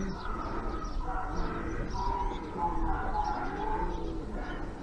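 Pouter pigeons (palomos buchones) cooing over and over, several low coos overlapping, with faint high chirps among them.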